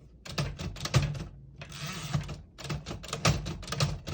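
1952 Royal Quiet Deluxe portable typewriter being worked at its tab controls: a run of sharp mechanical clicks and clacks, a short rushing slide of the carriage about a second and a half in, then more clicks.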